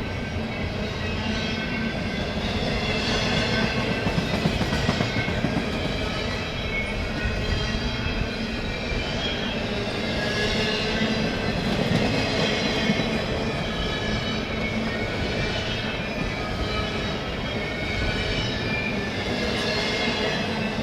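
Slow CN intermodal freight train rolling past: a steady rumble of steel wheels on rail, with faint high, wavering squeals from the wheels throughout.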